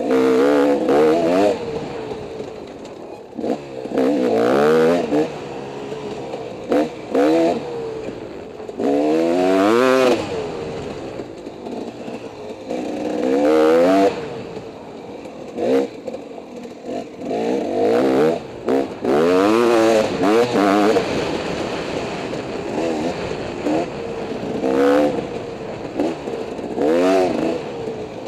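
Dirt bike engine heard from onboard, revving up in repeated bursts of throttle with short lulls between them. Knocks and rattles from the bike on the rough trail run through it.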